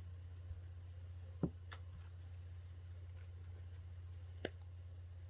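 A few small, sharp clicks from handling the tablet's internal parts while checking its connectors. The loudest comes about a second and a half in, a fainter one follows just after, and one more comes near the end, all over a steady low electrical hum.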